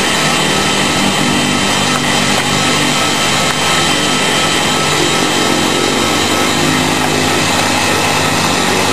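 Electric heat gun running steadily, its fan blowing hot air onto a strip of PVC pipe to soften it for bending: a constant rush of air over a low motor hum.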